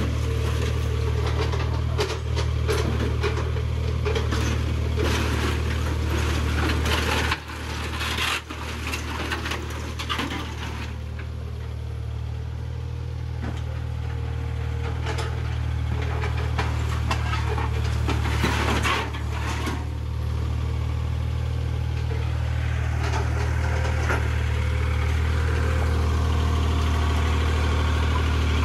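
An engine running steadily, with many short cracks and knocks over it, thickest in the first half.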